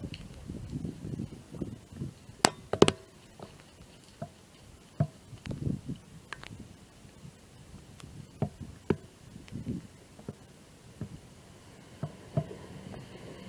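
Gusts of wind rumbling on the microphone, with scattered sharp clicks and knocks at irregular intervals.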